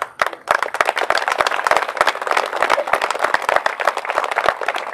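Audience applauding: many hands clapping, starting suddenly and going on steadily.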